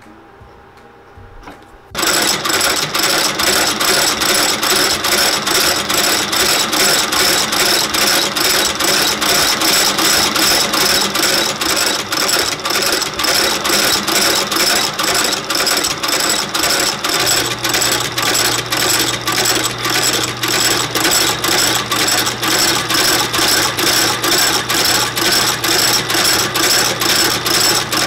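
Industrial outsole stitching machine sewing a leather sole to the welt of a shoe, starting about two seconds in with a steady mechanical clacking of about two to three stitches a second. A low hum joins about two-thirds of the way through.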